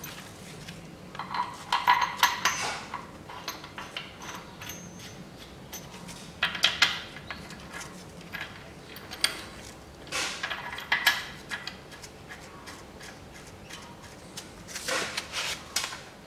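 Metal clinking and rattling of bolts and hand tools against the engine and gearbox bellhousing, in four short bouts about 2, 7, 11 and 15 seconds in, as the engine is fitted to the gearbox.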